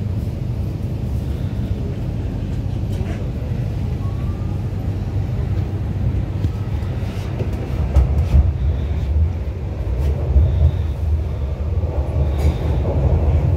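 MTR Kwun Tong line C-Train heard from inside the car as it pulls out of a station: a steady low rumble of the running train, with a faint rising motor whine about four seconds in. The rumble grows louder from about eight seconds in as it picks up speed.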